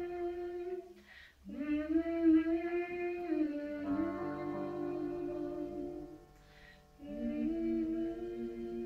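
A woman singing slow, held phrases that slide up into each note, with audible breaths between phrases, over diatonic button accordion and piano accompaniment.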